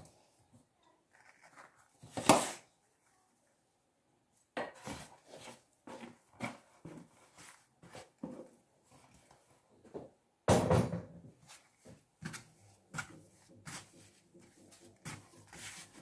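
A plastic tub knocking on a tabletop and hands working soft yeast dough on a floured surface: scattered knocks, thuds and rubbing, with a sharp knock about two seconds in and a heavier thud about ten and a half seconds in.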